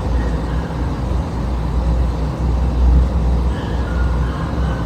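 Steady low rumble of background noise with no speech, a few faint high tones showing briefly past the middle.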